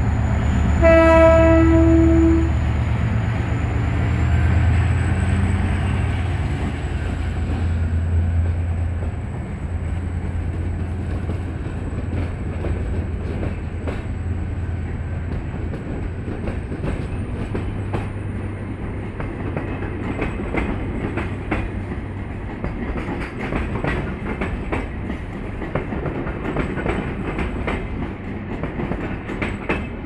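EMD GT22 diesel-electric locomotive pulling away, sounding one horn blast about a second in that lasts about a second and a half, over the low drone of its diesel engine. Later its passenger coaches roll past with a steady clicking of wheels over the rail joints.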